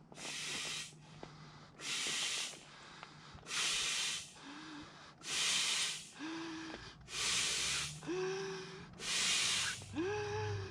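Manual air pump inflating an inflatable boat: six steady strokes, each a whoosh of air lasting about a second, about every two seconds. A short rising squeak sounds between the later strokes.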